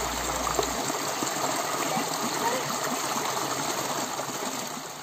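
Mountain stream rushing over rocks, a steady rush that begins to fade near the end.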